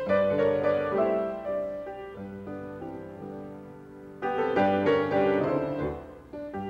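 Instrumental background music led by piano: chords struck at the start and again about four seconds in, each left to ring and fade.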